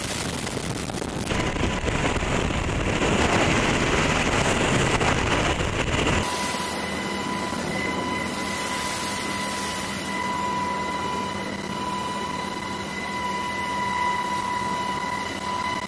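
Helicopter hovering, heard from inside the cabin at the open side door. For about six seconds a heavy rush of wind covers it; then the wind cuts off suddenly, and a steady high turbine whine carries on over the rotor noise.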